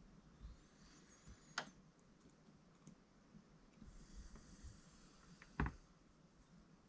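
Faint clicks and light taps of the small metal and plastic parts of an RC car's differential being handled and fitted, with two sharper clicks about a second and a half in and again near the end.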